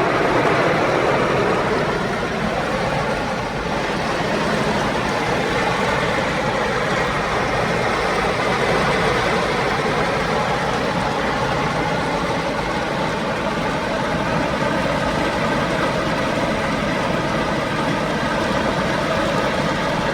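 Heavy rain falling as a steady, loud hiss, with a vehicle engine idling underneath.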